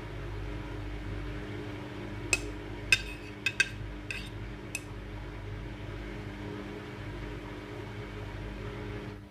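Midea front-loading washing machine running, a steady hum with a low tone. About two to five seconds in there are several sharp clinks.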